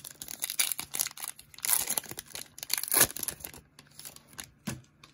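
Trading card pack wrapper being torn open and crinkled: a dense crackling for about three seconds, then a few scattered lighter crinkles.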